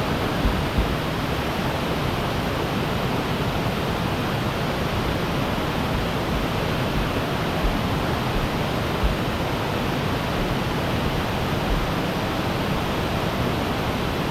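Steady rushing of a waterfall cascading into pools, with a few brief low bumps on the microphone.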